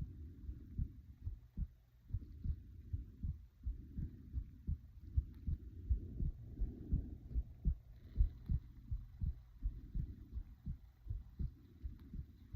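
A person's heartbeat picked up at the chest: a steady run of low, paired lub-dub thumps, about two a second. Under it, soft breathing swells in and out every couple of seconds.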